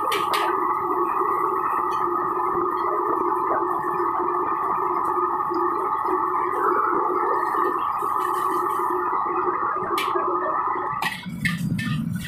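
Steady roar of a commercial wok burner under a wok of stir-frying vegetables. About eleven seconds in the roar drops away, leaving a lower rumble and a few sharp clatters of the spatula against the wok.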